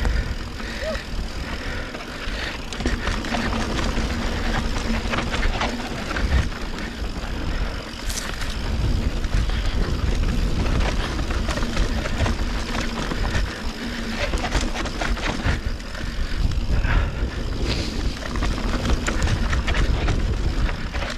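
Mountain bike riding down a loose dirt trail: tyres rolling and crunching over dirt and rock, with frequent clicks and knocks as the bike rattles over bumps, over a constant rush of wind noise.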